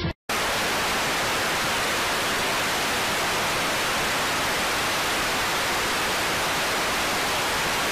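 Steady, loud hiss of TV static (white noise), starting abruptly after a split second of silence.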